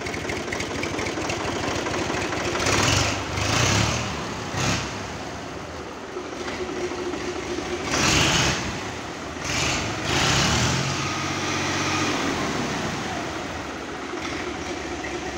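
Universal U-533 tractor's diesel engine running steadily while its hydraulic three-point lift is worked, with several brief louder surges of noise about three, four, eight and ten seconds in.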